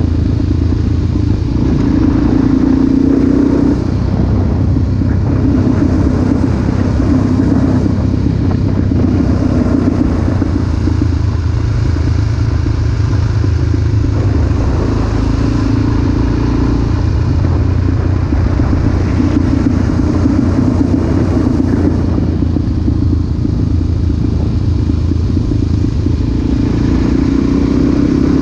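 Dual-sport motorcycle engine running at cruising speed on a winding road. The engine note swells for a second or two every few seconds as the throttle is rolled on and off through the bends.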